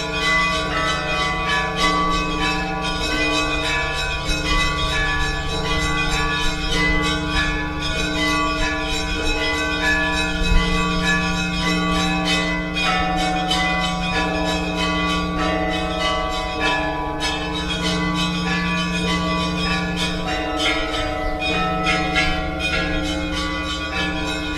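Russian Orthodox church bells ringing, many bells struck in quick succession. A deep bell tone sounds again and again under fast, dense strikes of the smaller bells.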